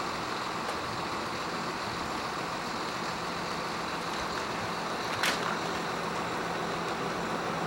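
Steady road traffic noise, a continuous rush of passing vehicles, with one short sharp click about five seconds in.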